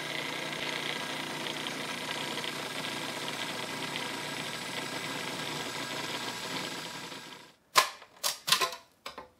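Countertop food processor running steadily, blending graham cracker crumbs as melted butter is drizzled in through the feed tube to make a crust. The motor stops about seven and a half seconds in, followed by a few sharp clicks and knocks as the plastic lid and feed tube are handled.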